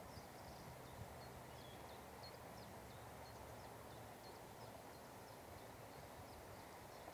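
Near silence: faint outdoor ambience with small, high bird chirps scattered throughout.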